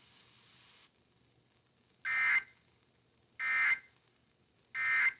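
Emergency Alert System end-of-message code: three short, shrill bursts of SAME digital data tones warbling between two pitches, each under half a second and about a second and a half apart. The bursts signal the end of the broadcast tornado warning alert. A faint hiss before them cuts off about a second in.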